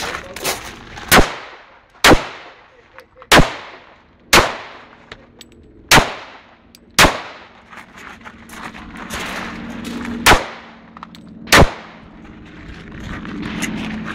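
Eight shots from a semi-automatic pistol, fired singly about a second apart, with a longer pause of about three seconds before the seventh shot. Each shot rings out briefly.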